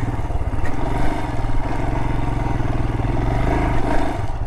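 Adventure motorcycle engine running hard under load as the bike churns through deep sand. About four seconds in, the revs drop and the engine settles into a slower, even beat.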